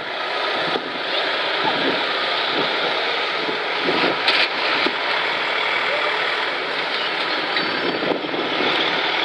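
Steady street noise of trucks driving past, with the voices of onlookers mixed in.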